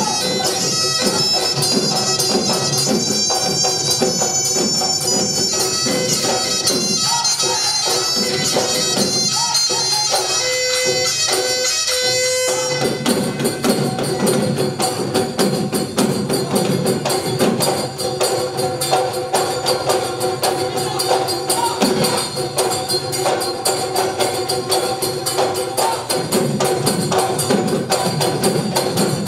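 Live Bihu folk music: a high, reedy wind melody over drums and jingling percussion, which drops out about twelve seconds in, leaving dhol drums and clappers playing a fast, driving rhythm.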